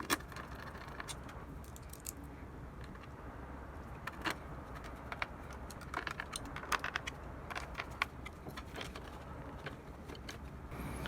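Plastic cable tie being pulled through and tightened, with scattered small clicks and rattles from handling the parts. The clicks come in short clusters, the busiest about two thirds of the way in.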